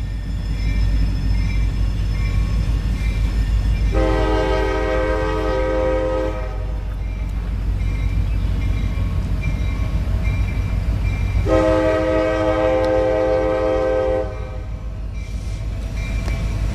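Diesel locomotive air horn sounding two long chord blasts, each about two and a half seconds, several seconds apart, over a steady low rumble of the approaching train.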